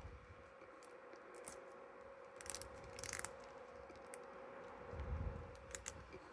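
Small plastic action-figure parts and accessories being handled and pressed together: a few faint clicks and light scrapes, with a soft low bump near the end.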